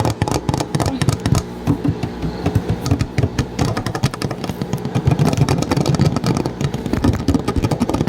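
Front-loading washing machine on a hand-wash cycle, running before its spin: a low motor hum with a dense, continuous run of rapid clicks and rattles from the drum and its load.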